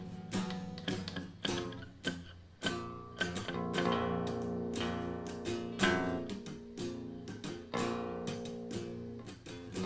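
Instrumental passage of a song, led by guitar: plucked and strummed chords with no singing.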